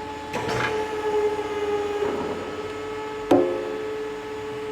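Spanner work on the adjustment nut of a two-post lift's hydraulic cylinder: a few light metal clinks, then one sharp metallic clank about three seconds in that rings briefly, over a steady hum.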